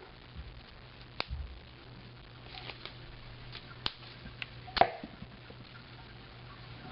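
Sharp plastic clicks and snaps from a K'NEX turret gun being fired and its turret turned until it snaps into place for the next shot; a few single clicks, the loudest about five seconds in.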